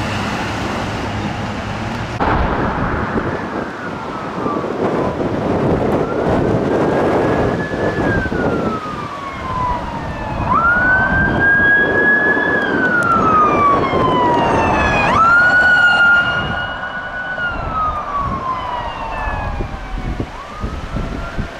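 Electronic siren on a Ford Police Interceptor Utility fire department SUV wailing as the vehicle drives past. Each cycle is a quick rise, a short hold and a slow fall, over engine and tyre noise.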